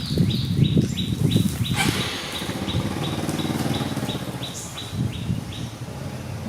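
A bird chirping in a fast, even series of short falling notes, about three a second, stopping near the end. Under it are loud, low rumbling and bumping noises, strongest in the first two seconds.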